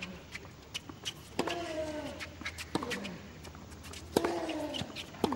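Tennis rally on a hard court: racket strikes on the ball about every second and a half, most of them with a player's short, falling grunt, and brief shoe squeaks between the strokes.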